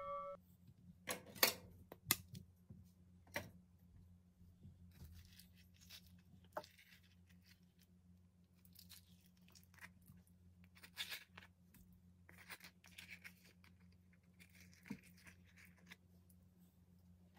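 Faint, scattered scrapes and soft clicks of a knife and a metal spoon working ripe avocado halves, prying out the pit and scooping the soft flesh from the skin, over a low steady hum.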